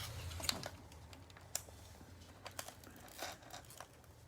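Crinkling and tearing of a plastic wrapper on a trading-card box or pack: a faint, irregular run of short crackles and clicks.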